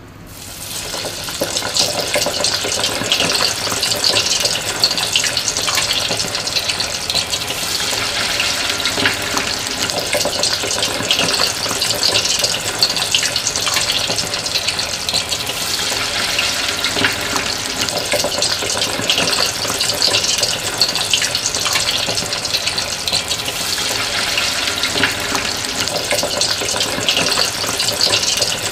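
Flour-dusted steamed rolls deep-frying in a pot of hot oil: a steady crackling sizzle that builds up over the first second or two as they go into the oil. The dry flour coating is there to keep the oil from spattering.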